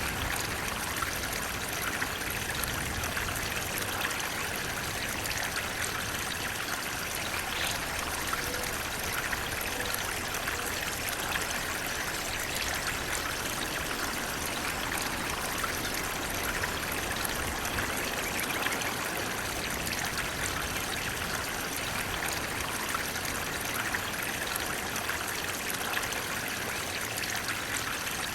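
Water flowing and splashing steadily over rocks, a continuous stream or small waterfall with fine trickling detail.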